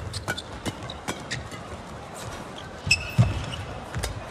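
Badminton rally: rackets popping against the shuttlecock while court shoes thud and squeak on the court mat, with a sharp cluster of shoe squeaks about three seconds in.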